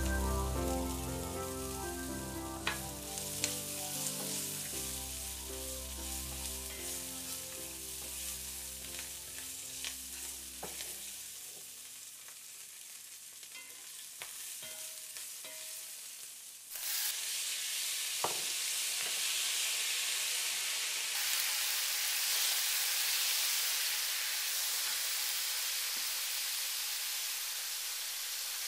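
Spring onions, garlic and ginger sizzling in hot oil in a pan, stirred with a wooden spatula that gives a few sharp knocks. About seventeen seconds in, the sizzling suddenly grows much louder and stays loud as whole prawns fry in the pan.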